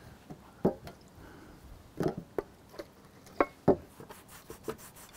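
Several short, sharp knocks and clicks, spread over a few seconds, from a metal can of cleaner and a rag being handled on the camper's rubber roof.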